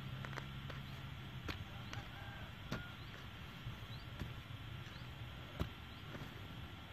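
A bamboo stick jabbing and scraping into dry soil while digging out a small hole, giving irregular sharp knocks and scrapes, with one louder knock near the end.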